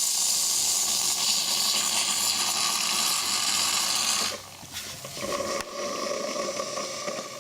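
DeLonghi Magnifica automatic coffee machine running its water pump, with a loud hiss of water. About four seconds in, the hiss cuts off suddenly and a quieter, steady hum goes on.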